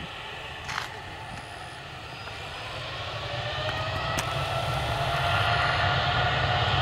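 Boeing 787's Rolls-Royce Trent 1000 turbofan engines at takeoff power on the takeoff roll. A low rumble carries a whine that rises in pitch, and both grow steadily louder from about two seconds in as the jet comes down the runway toward the listener.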